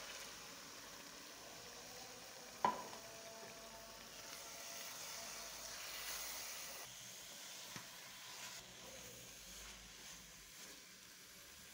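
Grated carrots and milk sizzling in a hot aluminium kadai while a spatula stirs them. A sharp knock comes about two and a half seconds in, and a lighter one near eight seconds.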